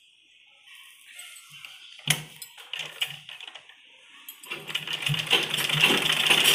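Fabric handled with a sharp click about two seconds in, then a Gulzar sewing machine starts sewing about four and a half seconds in, with a fast, steady mechanical clatter.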